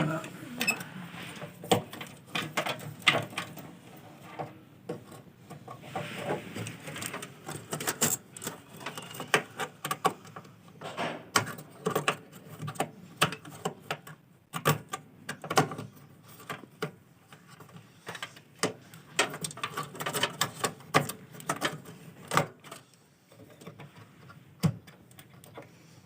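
Irregular clicks, taps and knocks of hands handling computer parts while a RAM stick is fitted into a desktop PC's memory slot.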